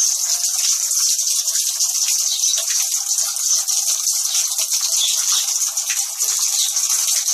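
Water spraying and gushing from the opened water valve of a gas water heater under mains pressure, a loud steady hiss. It escapes because no shut-off valve is fitted on the heater's water supply.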